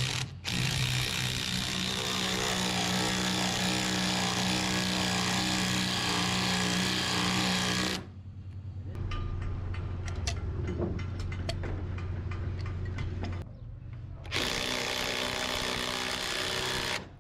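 Woodworking power tool running steadily with a constant motor hum. After a sudden cut comes a stretch of sharp taps and knocks over a lower hum, then the steady power-tool noise again.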